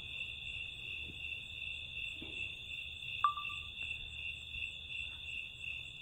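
Crickets trilling steadily in a night-time insect chorus, the sound pulsing gently, with a single short, sharp high blip about three seconds in.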